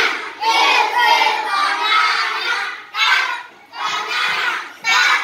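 A group of children singing and chanting an action song together in short, loud phrases with brief breaks between them.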